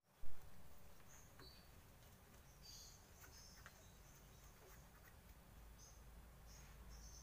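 Light metal handling as a rear brake drum is slid onto the hub and wiped with a rag: a sharp knock just after the start, then scattered faint clicks, with small birds chirping in the background.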